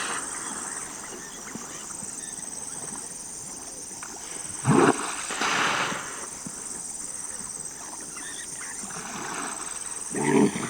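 Hippopotamus calls: two short grunting calls about halfway through, then the start of a louder run of repeated grunts near the end. A steady high-pitched hum runs underneath.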